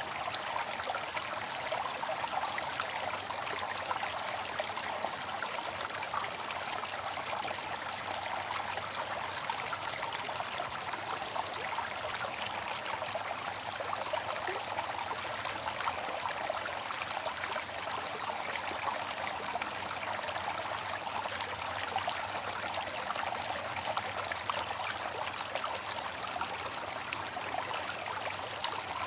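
Water fountain running steadily: a continuous splashing trickle of falling water.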